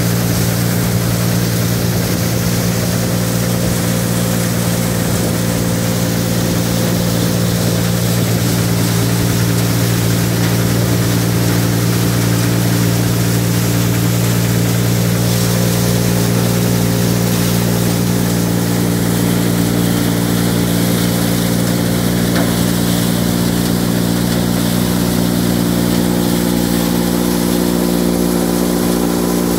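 Three-wheeler-mounted crop thresher running steadily while threshing, a constant engine-and-drum hum with a rushing noise of the fan, chaff and grain over it.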